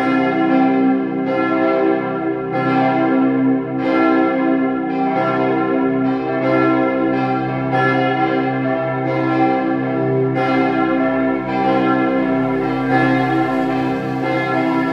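Church bells of the Martin-Luther-Kirche ringing in a peal, with a stroke about every second or so over a continuous, overlapping hum of ringing tones.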